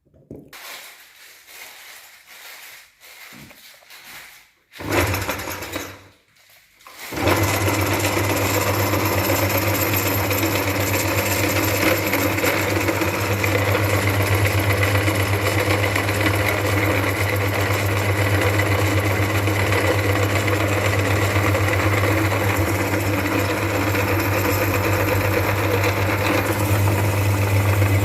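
Electric meat grinder: a few seconds of quiet clicking and handling, a short burst about five seconds in, then from about seven seconds the motor runs steadily with a low hum.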